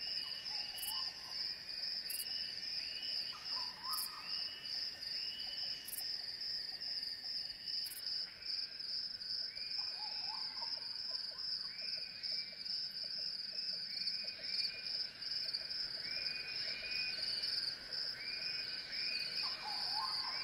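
Chorus of calling insects: a steady high trill with many repeated chirps layered over it, and a short lower call four times.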